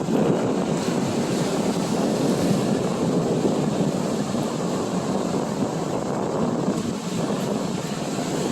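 Ocean surf washing in steadily, mixed with wind rushing over the microphone.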